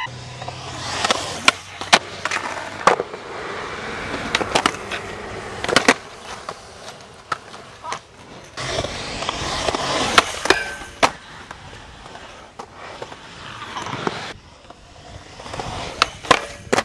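Skateboard wheels rolling on concrete, broken by many sharp clacks and slaps as the board is popped and lands.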